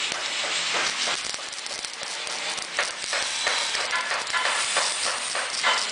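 Electric arc welding: a steady crackling hiss from the welding arc, broken by irregular sharp pops and sputters.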